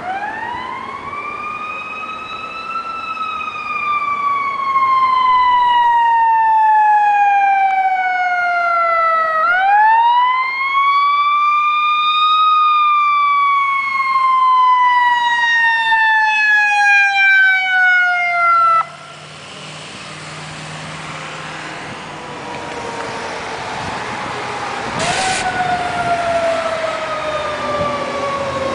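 Emergency vehicle siren wailing: two slow cycles, each rising for about three seconds and falling for six, then cut off abruptly about two-thirds of the way in. After a few seconds of lower road noise and a brief burst, the siren comes back in high and falls slowly, starting to rise again at the end.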